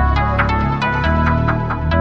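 Electronic background music with a steady beat over a deep bass line.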